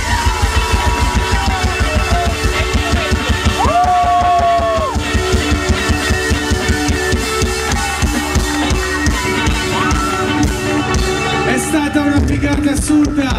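Live rock band playing: a drum kit keeps a fast, steady beat under electric guitar, with a sung vocal line holding a long note about four seconds in. It is heard from within the audience.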